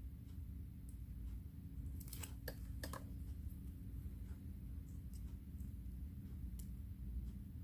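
Small clicks and taps of multimeter probes touching the terminals of laptop battery cells while their voltage is measured, a cluster of them about two to three seconds in, over a steady low hum.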